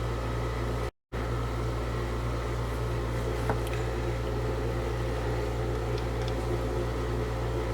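Steady machine hum in the room, a constant low drone with faint higher tones. The sound drops out completely for a moment about a second in, and a faint click comes a few seconds in.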